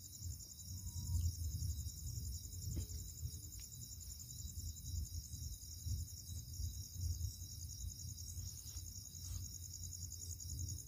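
Crickets trilling steadily, a high, even pulsing, over a low rumble on the microphone, with a few faint clicks.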